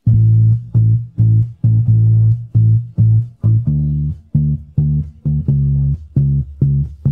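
Electric bass guitar alone, as an isolated stem separated from the full song by Demucs, playing a line of short, detached notes about two to three a second. It comes in suddenly and moves down to a lower note a little past halfway.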